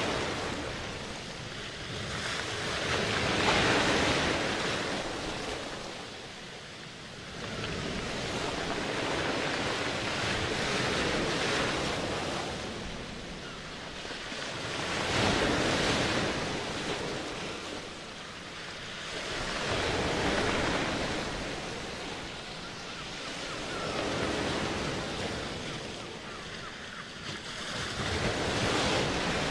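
Ocean surf: waves wash in and draw back, the noise swelling and fading every few seconds.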